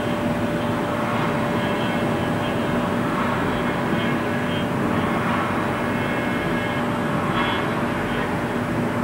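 CNC machining-centre spindle at 5645 rpm driving an 8 mm two-flute ball-nose end mill through X155CrMoV12 (1.2379) tool steel in a light finishing pass. It is a steady drone with a constant hum and the hiss of cutting.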